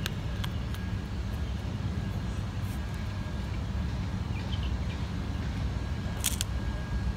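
A few sharp clicks of plastic toy horses knocked down on a concrete path, twice near the start and a quick cluster about six seconds in, over a steady low rumble.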